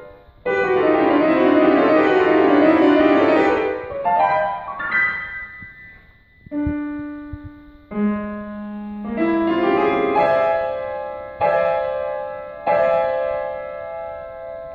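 Grand piano played solo: a loud, fast run of many notes for the first few seconds, then slower single notes and chords struck one by one, each left to ring.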